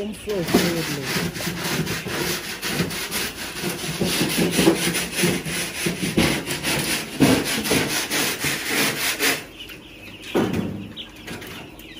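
Rough scraping or rubbing strokes, several a second, that stop about nine and a half seconds in.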